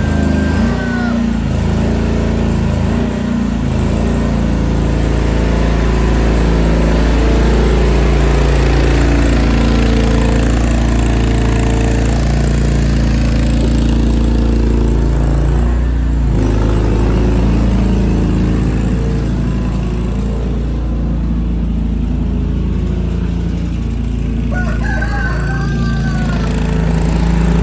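Mini skid steer engine running steadily under load, its pitch shifting now and then as it works. A rooster crows near the start and again near the end.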